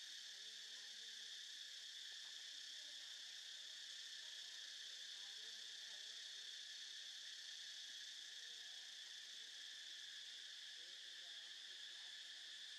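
Faint, steady chorus of insects: a continuous high-pitched chirring buzz that does not change.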